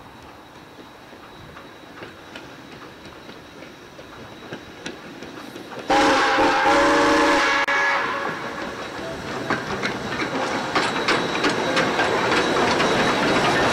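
South Australian Railways Rx-class 4-6-0 steam locomotive Rx224 approaching, faint at first with scattered rail clicks. About six seconds in, its steam whistle sounds one loud multi-note chord for about two seconds: a warning blast at the whistle board. The train's running noise then grows loud as it passes, with clickety-clack of wheels on rail joints.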